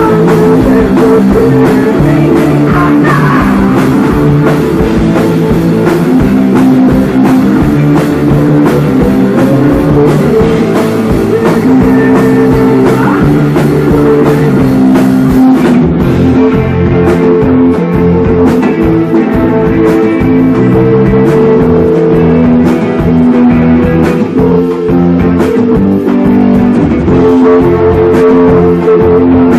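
A live rock band playing loud: electric guitar and bass over a drum kit. The cymbal wash eases off about halfway through while the guitar and drums carry on.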